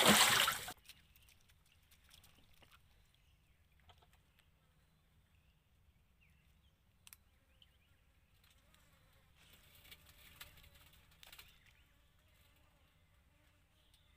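A short, loud splash at the very start: a freshly caught barracuda tossed off a small wooden boat into the water. After that only low background sound, with a softer noisy stretch about ten seconds in.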